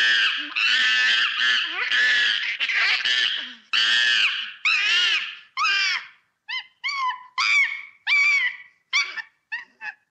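Monkeys giving high-pitched squealing calls, packed in a near-continuous run for about six seconds, then short separate calls about two a second.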